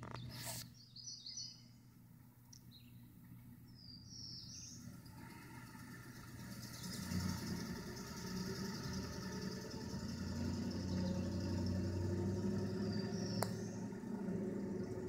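Outdoor ambience: a few short high bird chirps, and a low steady mechanical hum, like a distant engine, that grows louder from about halfway through.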